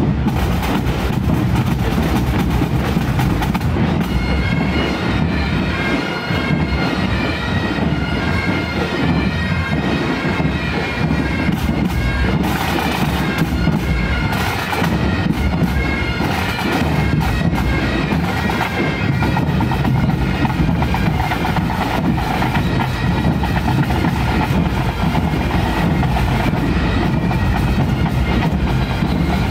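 Marching band bagpipes playing a steady march tune, with drums beating underneath.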